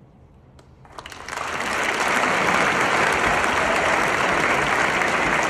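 Concert hall audience applauding. It starts about a second in after a quiet pause and swells quickly into full, steady applause.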